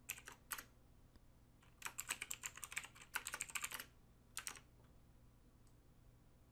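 Computer keyboard keys clicking as someone types, in several quick bursts of keystrokes, the last couple about four and a half seconds in.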